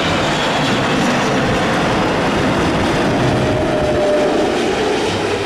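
Twin-engine jet airliner landing: a loud, steady jet roar with rushing air, and a faint steady whine about three seconds in.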